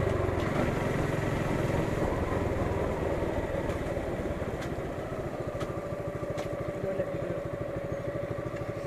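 Motorcycle engine running at low revs as the bike rolls along and slows down, its firing pulses even and steady and the sound getting gradually quieter.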